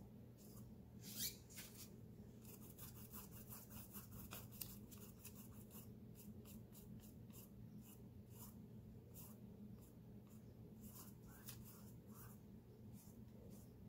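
Paintbrush brushing thinned acrylic paint onto textured canvas: faint, quick scratchy strokes, repeated over and over, above a low, steady hum.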